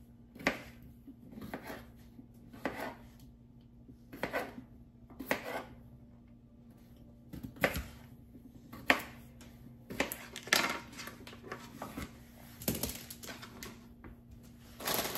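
Kitchen knife halving small potatoes on a cutting board: a dozen or so sharp knife strikes against the board, unevenly spaced, bunching closer together about two-thirds of the way in.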